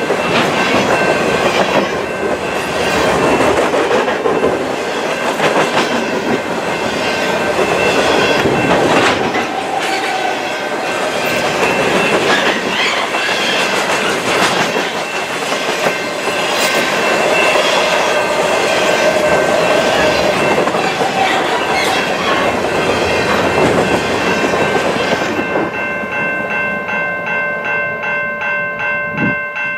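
Covered grain hopper cars of a freight train rolling past, their wheels clacking over rail joints, with a steady high wheel squeal over the rumble. About 25 seconds in the rolling noise thins out and the steady squeal tones carry on.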